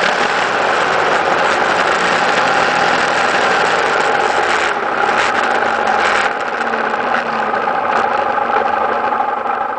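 Steady engine and tyre noise from a road vehicle driving along, easing off a little about six seconds in as it slows for an intersection.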